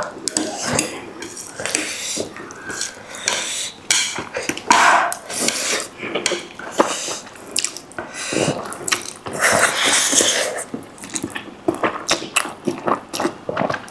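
Close-miked eating: slurping and chewing noodles, with utensils clicking against a bowl.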